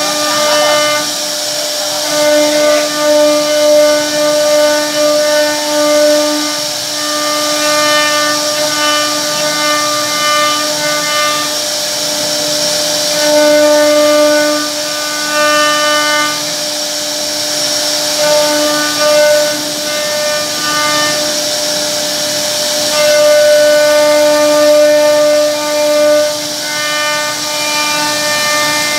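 CNC router spindle whining steadily at one pitch as its bit carves a relief pattern into a wooden door panel, with a hiss of cutting. The whine's upper overtones come and go every few seconds as the cut changes.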